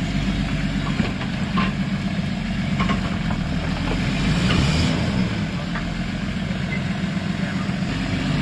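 Off-road vehicle engine running steadily at low revs, with a few faint clicks and knocks over it.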